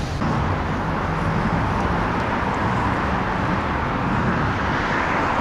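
Steady city street noise: an even rush of road traffic with a low rumble beneath.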